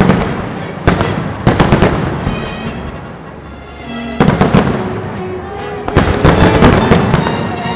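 Fireworks bursting in clustered volleys of sharp bangs and crackle: a group near the start, more about a second and a half in, then again about four seconds in and around six to seven seconds. Music plays underneath throughout.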